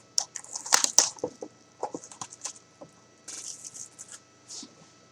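Crinkling and rustling of trading-card packaging being handled: foil card packs and the box's wrapping, heard as irregular sharp crackles.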